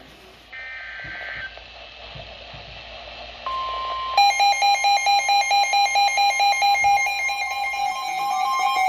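NOAA weather radio receiving a severe thunderstorm warning. First comes a second-long burst of the warbling SAME data header. About three and a half seconds in, the steady 1050 Hz warning alert tone starts, and moments later a weather radio's alarm joins it with rapid pulsed beeping, about three or four beeps a second.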